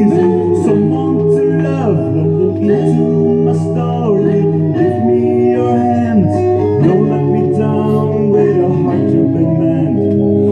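A Rock-ola 460 jukebox playing a record: a pop song with guitar and male singing over a steady beat, the machine working after repair.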